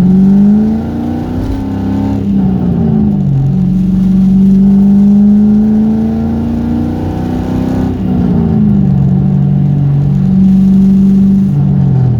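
1998 Mustang Cobra's 4.6-litre DOHC V8 running on the road: the engine note rises, drops, holds steady for several seconds, drops again about eight seconds in and settles, then falls near the end. It is at the cruising revs, around 2,000–3,000 rpm, where the owner hears a light tap-tap-tap rattle that he thinks may come from the timing chains, tensioners or tappets.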